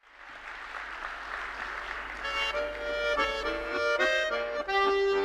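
Audience applause, then about two seconds in an accordion starts playing the melodic introduction of the song, a run of changing notes.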